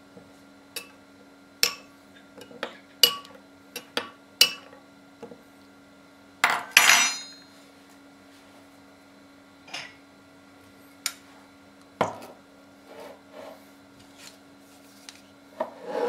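A spoon clinking and tapping against glass bowls while stirring oak bark and elecampane root steeped in boiling water: a quick run of sharp clinks, then a longer ringing clatter about six and a half seconds in. After that come a few scattered knocks and a scrape near the end, over a faint steady hum.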